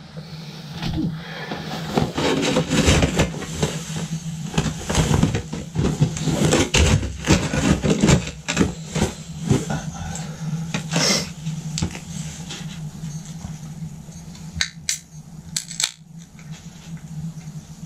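Clothing rustling and handling noises, a dense run of clicks and knocks, then quieter with a few sharp clicks around fifteen seconds in; a steady low hum runs underneath.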